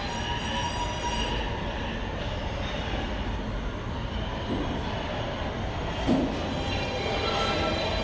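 New York City subway train running: a steady rumble of wheels on rail, with faint wheel squeal at the start and again near the end, and a single knock about six seconds in.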